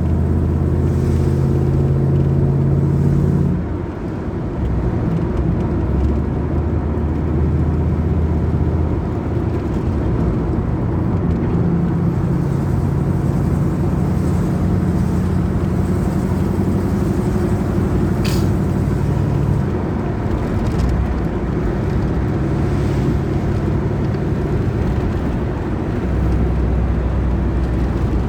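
1986 Camaro IROC-Z's V8 engine idling unevenly, its idle note shifting up and down several times with a brief dip about four seconds in. This is the rough idle the owner reports once the engine is warm.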